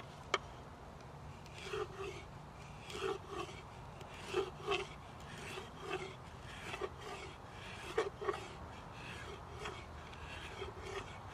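A hand tool rasping on wood in short, uneven strokes, often in pairs, with one sharp click near the start.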